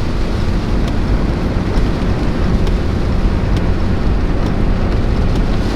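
Steady road and engine drone inside a hotshot pickup's cab while driving in the rain, with a few faint ticks of rain hitting the truck.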